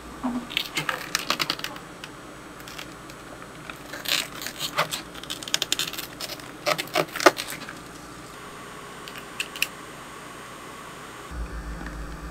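Metal ice cream scoop scraping and clicking against firm ice cream and the tub in several short bursts of sharp clicks and scrapes, over a steady low hum.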